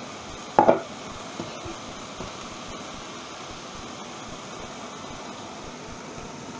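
A glass saucepan lid set down with a double clatter on the glass-ceramic hob about half a second in, followed by a few light clinks of a fork stirring the rice in the pot, over a steady hiss.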